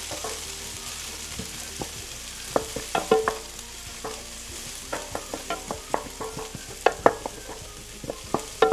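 Sliced onion sizzling steadily in hot vegetable oil in a pan while being stirred, the utensil knocking and scraping against the pan many times.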